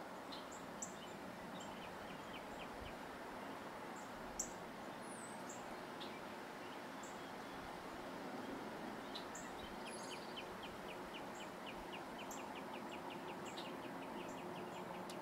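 Backyard ambience: a steady low hum of background noise with scattered short, high bird chirps. From about ten seconds in, a fast, even ticking trill comes in at about five notes a second.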